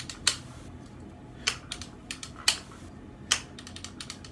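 AR-15 safety selector and trigger being worked in dry fire with the bolt locked to the rear: a series of sharp metallic clicks, four loud ones roughly a second apart with fainter clicks between.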